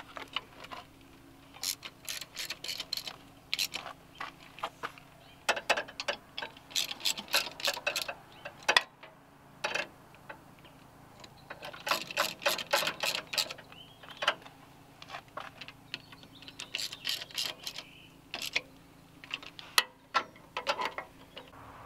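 Ratchet wrench with a 12 mm socket on a wobble extension clicking in quick runs as bolts on the intake side of a Kubota D1503 diesel engine are run down. There are about five separate bursts of ratcheting with short pauses between them.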